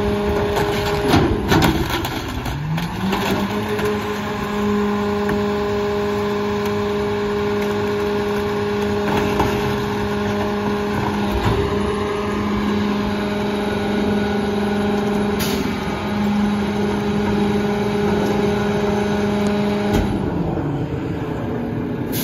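Heil 5000 rear loader garbage truck running its hydraulic packer: a few clanks near the start, then the engine speeds up about two seconds in and holds a steady hum with hydraulic pump whine while the blade cycles. It drops back toward idle near the end.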